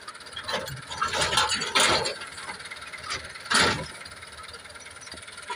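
Al-Ghazi tractor moving slowly as it pulls a towed wheat thresher into position, the machinery rattling and clanking in irregular louder bursts over the running engine.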